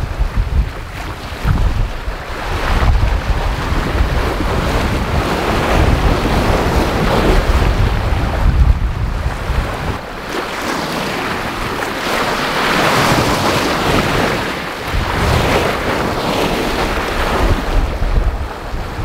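Choppy sea and the bow wave rushing and splashing along the hull of a sailing yacht moving fast under sail, with wind buffeting the microphone. The low wind rumble is heaviest in the first half, and the water rush swells up around the middle and again a few seconds later.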